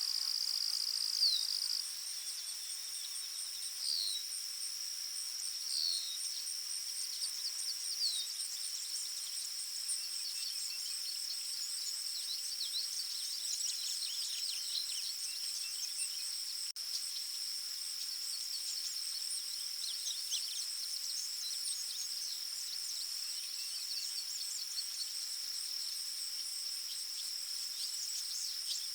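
Forest ambience: a steady, high-pitched insect drone throughout. Over it, a bird gives a short falling call about every two seconds for the first ten seconds, then many short bird chirps come scattered through the rest.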